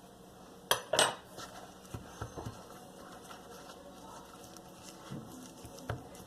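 A utensil knocking and scraping against a bowl while stirring a flour, water, salt and oil mixture that is starting to clump: two sharp knocks about a second in, then lighter taps and scrapes.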